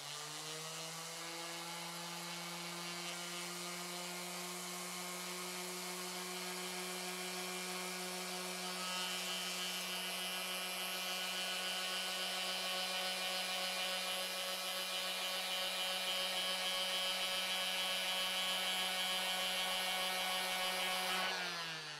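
Electric random orbital sander spinning up, running steadily under load as it is passed slowly over a wooden board with a coarse-grit disc to remove burn marks, then winding down near the end.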